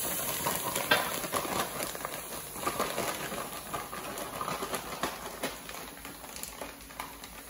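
Frozen broccoli florets dropping into an empty stainless steel pot, a scatter of small knocks as the pieces land, with the crinkle of the plastic freezer bag they come from. The knocks are thickest in the first couple of seconds and thin out towards the end.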